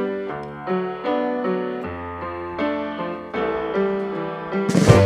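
Background music: piano or electric piano chords struck about twice a second, with a drum kit and crash cymbal coming in near the end.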